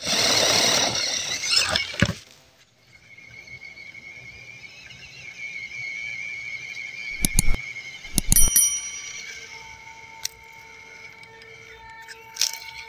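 A noisy rustle for the first two seconds, then the steady high whine of a small RC crawler's brushed 260 electric motor and gearbox driving slowly, with a few sharp clicks about midway and near the end.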